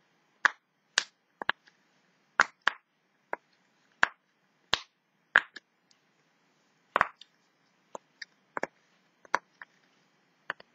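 Star-shaped silicone pop-it fidget toy being pressed bubble by bubble: about twenty sharp separate pops at an uneven pace, roughly two a second.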